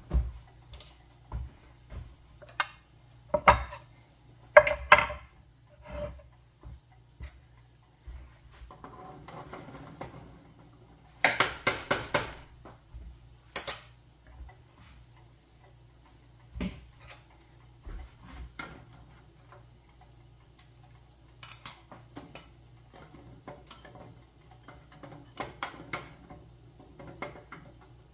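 Kitchen clatter: dishes and utensils knocking and clinking in a string of separate knocks, with a louder run of clatter a little before halfway.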